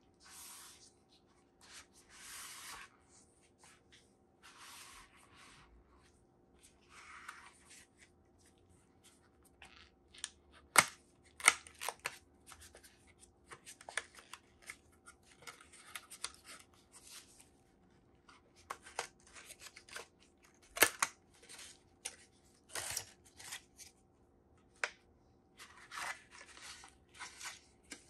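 Phone retail box being unpacked by gloved hands: rustling and sliding of cardboard and paper inserts, with a scatter of sharp snaps and taps from about ten to twenty-four seconds in.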